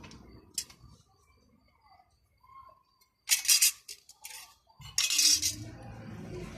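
Metal parts and tools clinking and clattering as they are handled: a few light clicks, then two loud rattling clatters a few seconds in.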